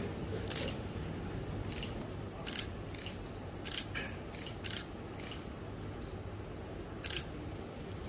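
Camera shutters clicking: about nine short, sharp clicks at irregular intervals, over a steady low background hum.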